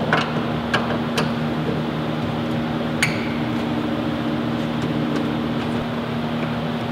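A steady mechanical hum, with a few light clicks and one sharper click with a brief ring about three seconds in, as the car's door handle is worked loose from the door after its screws are out.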